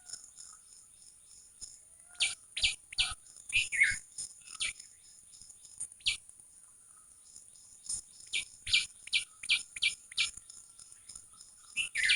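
Small songbirds chirping: clusters of short, quick, falling chirps about two seconds in, once near six seconds, and again from about eight to ten seconds, over a steady high-pitched pulsing trill.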